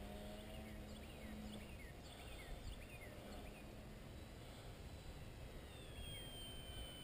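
Distant RC airplane motor and propeller whining faintly over low wind rumble, its pitch falling about six seconds in as the plane comes around. A few short falling chirps sound in the middle.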